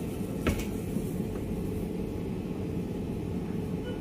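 Steady low hum of supermarket background noise, with one sharp click about half a second in.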